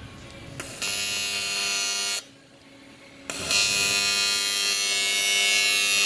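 Electric welding arc buzzing with a steady pitched hum as a socket is welded to aluminum, in two runs: one of about a second and a half starting near the first second, then a short pause, then a second run from about three seconds in that carries on.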